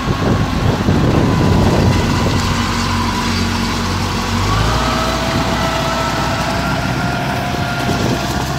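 Engine of a small tracked rice-sack carrier running steadily as it crawls through a muddy field, with a whining tone over the hum that slides up a little from about halfway through.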